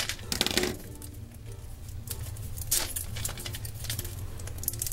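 Foil wrapper crinkling and tearing as it is peeled by hand off a large chocolate egg, in a few short rustles: in the first second, midway and near the end.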